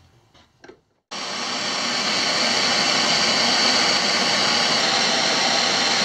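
Handheld gas torch flame hissing steadily as it heats the end of a steel threaded rod to bend it, starting abruptly about a second in after a few faint clicks.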